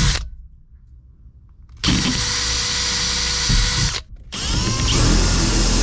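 Electric drill running in bursts: it stops a moment in, starts again at about two seconds, cuts out briefly near four seconds, then runs on with its whine rising and falling as it bites.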